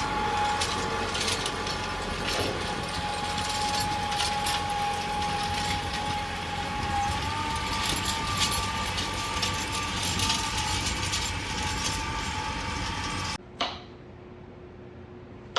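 Tractor running while it tows an old steel drag harrow across a pasture, a steady engine whine under irregular metal rattling and jangling from the harrow. The sound cuts off suddenly near the end.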